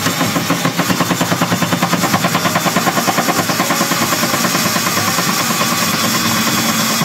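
Cordless drill with a stepped drill bit boring into a plastic golf-cart dash, enlarging a hole one step wider. For the first few seconds the cut chatters rapidly, about ten pulses a second, then it runs more evenly.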